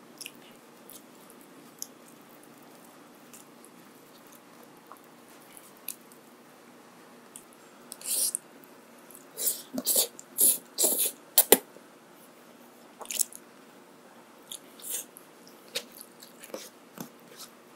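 Close-miked eating: scattered mouth clicks and chewing, with a run of loud bites and crunches from about eight to twelve seconds in.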